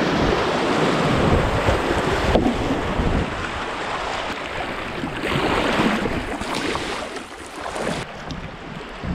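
River rapids rushing and splashing around a kayak, with paddle splashes and wind noise on the microphone. The rush of water drops lower in the last couple of seconds as the river goes flat.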